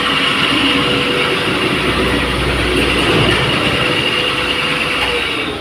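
Electric concrete floor grinder running steadily as it grinds a cast terrazzo floor, its motor hum mixed with the hiss of the grinding heads and attached dust vacuum. The motor's tone starts to fall in pitch near the end.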